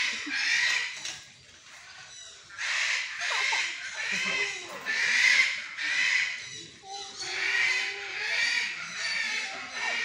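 Scarlet macaws giving a string of harsh, raspy squawks, roughly one a second, with a short pause between about one and two and a half seconds in.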